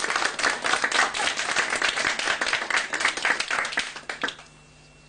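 Audience applauding, the clapping thinning out and stopping about four seconds in, leaving a faint steady hum.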